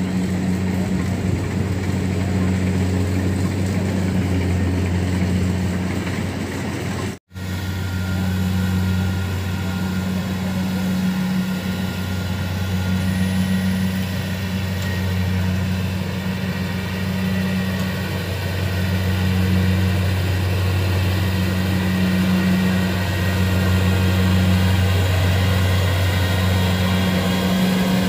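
Kubota DC70 Plus combine harvester's diesel engine running steadily as the machine crawls through the paddy, a deep even hum. The sound cuts out for an instant about seven seconds in.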